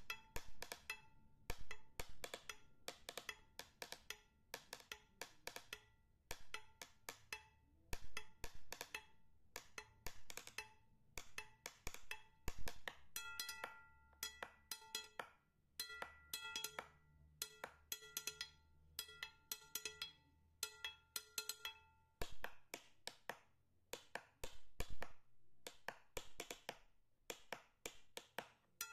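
Percussive background music: rapid wood-block-like clicks and short pitched notes in a steady rhythm over a soft low bass.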